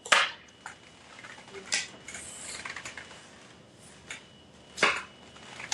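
Playing cards being laid and slapped down on a table during a game: a few sharp slaps, the loudest at the very start, with a soft rustle of cards in between.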